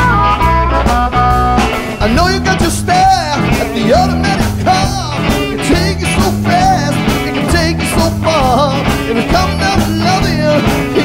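Blues band playing with a drum beat, bass and held instrument notes; about two seconds in, a man's voice starts singing over the band.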